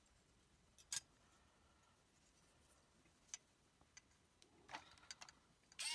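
Near silence with a few faint, short plastic clicks and taps as a micro servo is worked out of a plastic robot foot by hand. The clearest click comes about a second in, and a few more cluster near the end.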